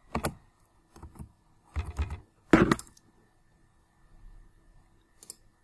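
A handful of separate clicks and taps from a computer keyboard and mouse as a dimension value is typed in, the loudest about two and a half seconds in.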